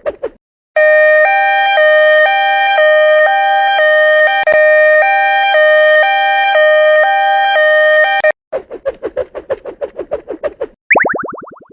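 Electronic railroad-crossing-style warning sounds: a rapid pulsing ring of about six pulses a second, then a loud two-tone alarm switching between a lower and a higher pitch about every half second for some seven seconds, then the rapid pulsing again. Near the end a quick falling cartoon zip sound.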